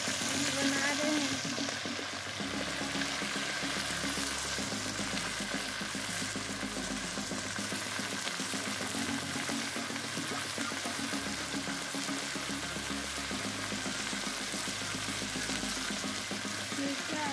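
Pieces of duck meat sizzling steadily as they fry in hot oil in a kadhai.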